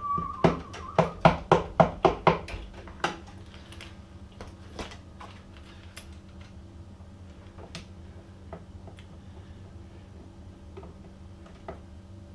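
A short high tone, then a quick run of about eight sharp metallic clicks and knocks from hand tools working on an old wall light switch in a metal electrical box, followed by a few faint scattered clicks.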